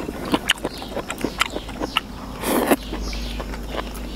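Eating at a table: chopsticks tapping and scraping on a plate and a person chewing, a scatter of small sharp clicks. A short breathy noise comes about two and a half seconds in.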